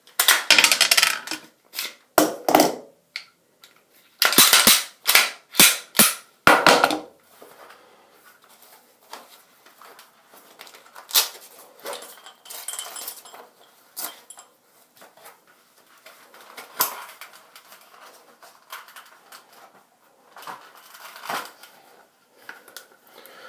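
Handling noise of a Glock 19 pistol and its gear: a run of sharp plastic-and-metal clacks and clicks in the first seven seconds or so, then softer, scattered clicks and rustling.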